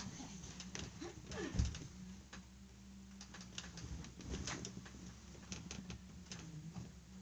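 Scattered light clicks, taps and rustling from someone moving about on a bed and its bedding, with one soft thump about a second and a half in, over a steady low hum.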